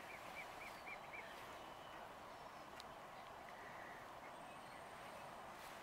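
Quiet outdoor background with a distant bird giving a quick run of about five short chirps in the first second, then only faint ticks.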